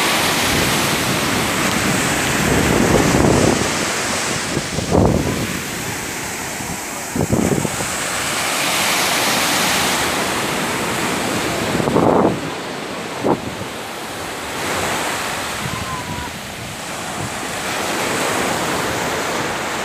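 Ocean surf breaking on a sandy beach: a steady wash of waves that swells and eases, with wind buffeting the phone's microphone in a few short thumps.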